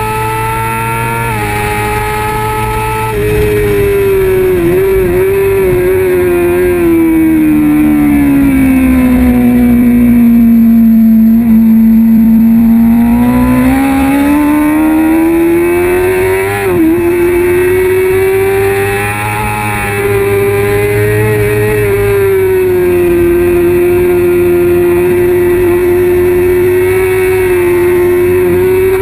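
Kawasaki ZX-6R 636 inline-four engine at racing revs, heard from on board. Its note steps twice early on as gears change, then falls slowly for several seconds as the bike slows through a corner and climbs again as it accelerates out, with a sharp brief dip about halfway through, then runs steady.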